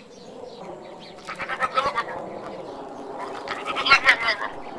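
Goat bleating: two wavering calls, one about a second and a half in and a louder one near four seconds.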